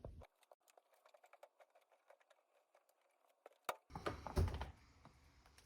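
Laundry being handled and loaded into a washing machine: many small scattered clicks and taps, then louder rustling with a single thump about four and a half seconds in.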